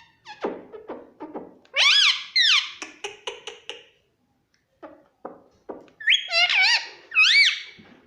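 Pet parrot calling: two loud, shrill squawks with a wavering pitch, about two seconds in and again about six seconds in, between shorter, lower chattering syllables.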